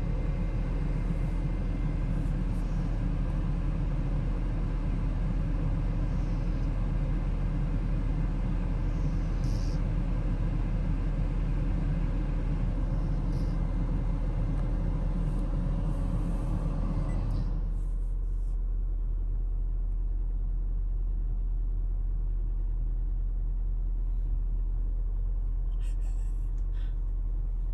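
Steady low rumble over a constant low hum. The rumble drops away abruptly about two-thirds of the way through, leaving only the hum and a few faint short sounds.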